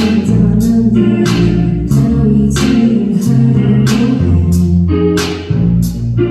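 Live band playing a pop song with a steady beat: drum kit, bass guitar and guitar, with singing.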